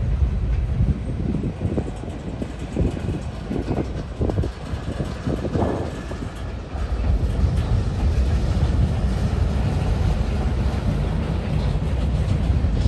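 Freight cars of a manifest train rolling past: boxcars and centerbeam flatcars giving a steady low rumble with irregular knocks and clatter from the wheels.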